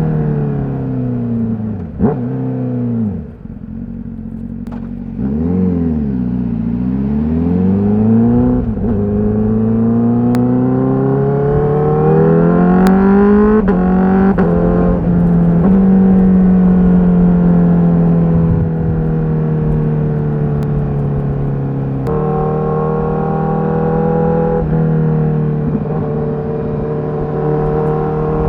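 Honda CBR1000RR-R SP's inline-four engine through its stock exhaust, running on the move with its pitch rising and falling. It climbs steadily for several seconds, then winds down slowly, with sudden jumps in pitch at gear changes.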